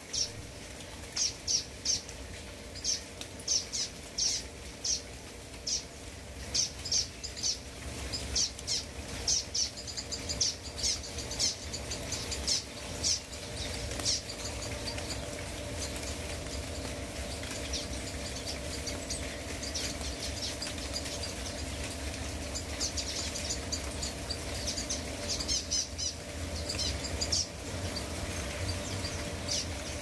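Small birds chirping in short, high, repeated notes over a steady hiss of rain falling on foliage. The chirps come thick for the first half, thin out, then pick up again later on.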